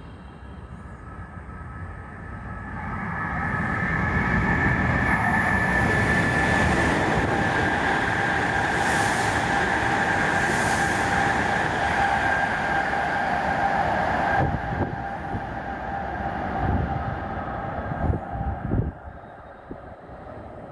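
Hokuriku Shinkansen E7/W7-series train passing through the station non-stop at about 260 km/h. A rushing roar with steady whine tones builds over a couple of seconds, holds for about ten seconds, then cuts off sharply as the end of the train goes by. Wind gusts from the train's wake then buffet the microphone in low thumps.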